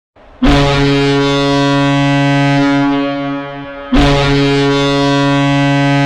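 Boston Bruins 2008-09 arena goal horn sounding two long, deep, steady blasts, the first starting about half a second in and fading out after about three seconds, the second starting about four seconds in, signalling a Bruins goal.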